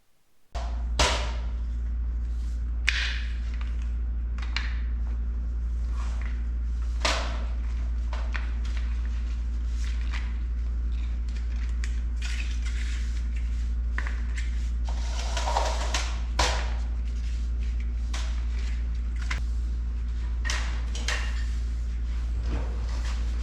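A steady low electrical hum that starts suddenly about half a second in, with scattered clicks, knocks and rustling handling noises over it.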